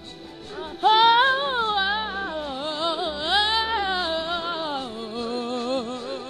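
A singer's high voice comes in about a second in with a long wavering vocal run over backing music. The run slides gradually lower and settles on a held lower note near the end.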